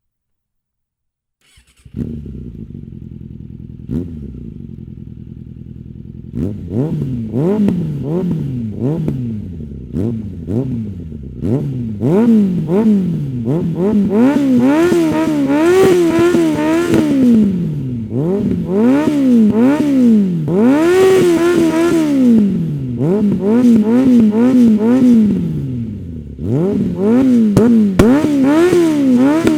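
2004 Suzuki Bandit 600's carburetted inline-four, through an open SC-Project CR-T–style slip-on with the dB killer removed, idling steadily from about two seconds in. From about six seconds on it is free-revved again and again, the revs rising and falling in quick blips and one longer high rev. Sharp pops and crackles from the exhaust come as the revs drop.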